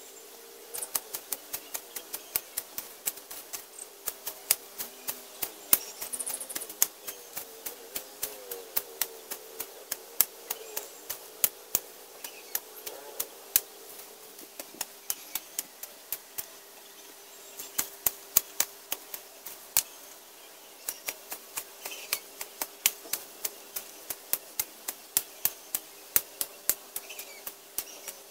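A long blade swung by hand, chopping through tall grass and weeds: a run of sharp cutting strikes, about two to three a second, with a longer pause around the middle.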